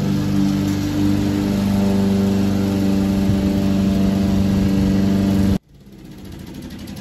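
Walk-behind lawn mower engine running steadily while mowing grass. It cuts off abruptly about five and a half seconds in, leaving only a much fainter sound.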